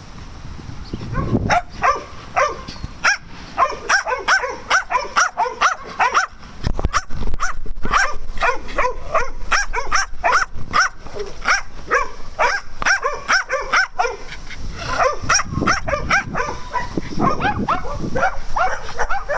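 Small dogs barking excitedly, a fast run of short, repeated barks that keeps going with little pause.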